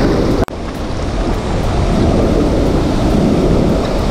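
Steady loud rush of water pouring out of a dam outlet and churning in the pool below. The sound cuts out for an instant about half a second in.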